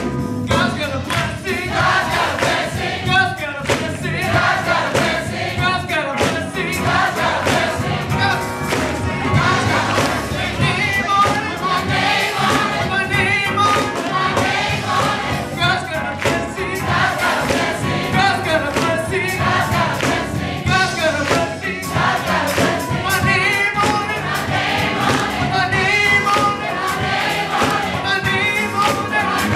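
Mixed gospel choir singing, with rhythmic hand clapping and a lead voice on a microphone.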